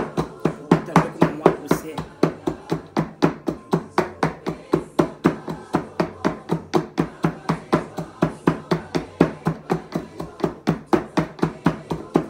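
Steady, rapid strikes of food being chopped or pounded, about four a second and very even, each with a short hollow ring.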